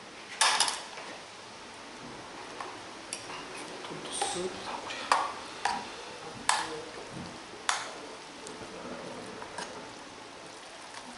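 A metal utensil clinking against a square stainless steel pot as food is stirred and mixed in it: about eight sharp, ringing clinks at uneven intervals.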